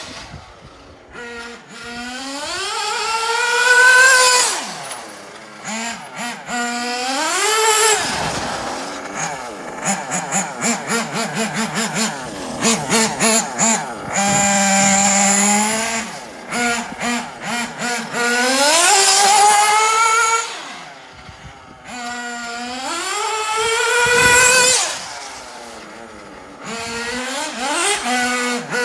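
Nitro engine of a Kyosho Inferno MP9 TKI4 1/8-scale RC buggy revving up and dropping back to idle several times. In the middle there is a choppy stretch of rapid stuttering throttle blips.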